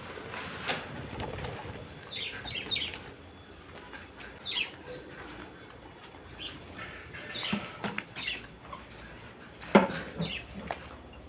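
Pigeons and parakeets flapping their wings, with short high parakeet chirps coming in small clusters every second or two. A sharp knock near the end is the loudest sound.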